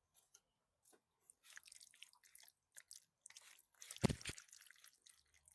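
Close-up eating sounds: a person biting and chewing crunchy food, with soft irregular crackles and one louder crunching bite about four seconds in.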